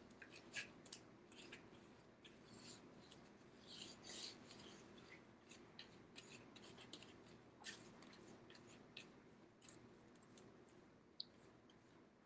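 Faint, irregular scratchy strokes and dabs of a paintbrush on a paper plate, over low room tone.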